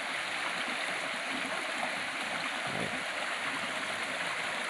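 Small rocky stream running over and between boulders: a steady, even rush of flowing water.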